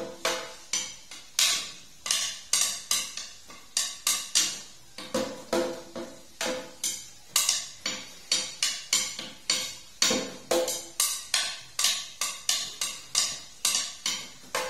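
Small drum beaten with two thin sticks: a continuous run of sharp, clacking strikes, about three a second in an uneven rhythm.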